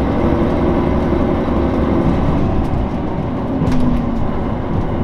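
Kyoto Tango Railway 'Tango no Umi' KTR8000-series diesel railcar under way, heard inside the passenger cabin: a steady low drone of the diesel engine mixed with wheel-on-rail rumble from beneath the floor.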